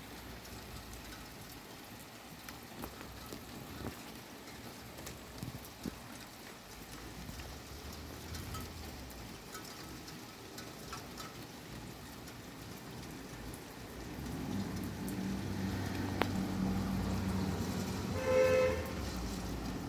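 Heavy rain falling steadily, with scattered drips and patters. About two-thirds of the way in, the low rumble of a passing vehicle builds under the rain, and a short pitched tone sounds just before the end.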